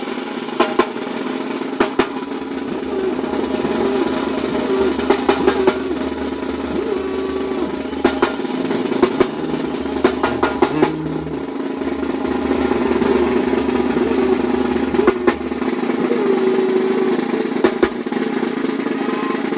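A band playing music driven by drums: snare drum rolls and sharp hits over long held bass notes and a sustained melody.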